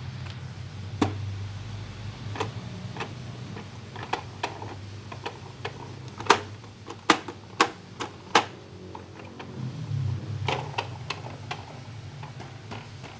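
Irregular hard plastic clicks and knocks from a baby walker's toy tray being played with by hand, as its spinner is turned and its pop-up toys are pressed. A handful of the loudest clicks come close together about halfway through.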